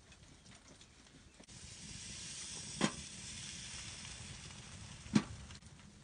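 Bread slices laid on the hot top of a wood-burning stove, with a steady hiss that starts about a second and a half in. Two sharp knocks, nearly three and about five seconds in, as pieces are set down on the plate; the second knock is the louder.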